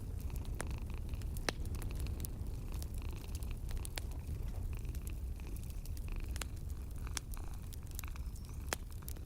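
Wood fire crackling in a fireplace, with scattered sharp pops, over a steady low rumble of a cat purring.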